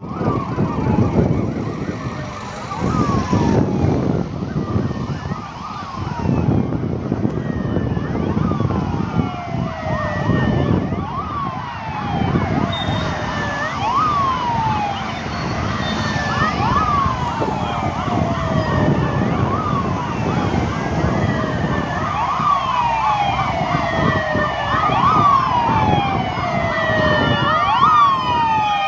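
Sirens of a column of police vans on emergency run, many overlapping falling sweeps repeating again and again, over the noise of cars passing on the road. The sirens grow louder near the end as the column draws near.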